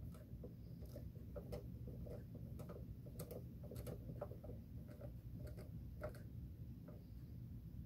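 Faint, irregular clicking from a small precision screwdriver turning a screw into a plastic model hull part, a few clicks a second.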